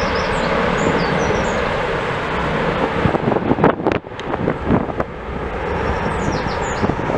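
Airbus A330 jet engines at takeoff thrust, a loud steady noise during the takeoff roll. Gusts of wind hit the microphone in uneven surges around the middle, and birds chirp briefly at the start and again near the end.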